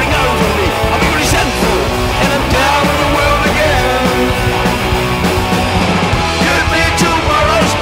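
Studio-recorded punk rock song, played loud and steady by a full band with electric guitars and drums.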